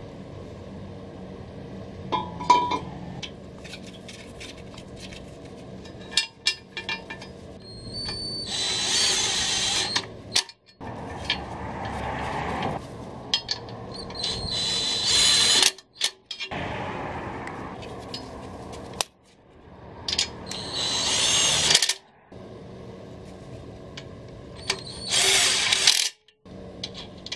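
Cordless drill/driver with a socket running bolts into a transmission adapter plate, in four runs of about two seconds each with a high whine, and short clicks between runs.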